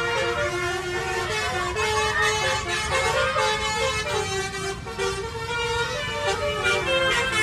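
A basuri-style telolet horn, a multi-trumpet vehicle air horn, playing a melody in held, stepped notes, over steady low engine and road noise.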